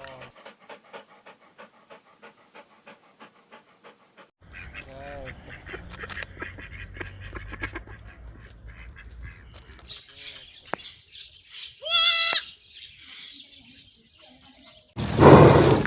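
Several different animal calls one after another: first a fast series of short pulses, then other calls, the loudest being a short call with many stacked pitches about twelve seconds in, and another loud call starting near the end.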